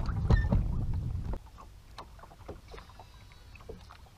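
Bass boat underway: a loud, low rumbling noise that cuts off suddenly about a second and a half in. Light clicks and knocks on the boat follow.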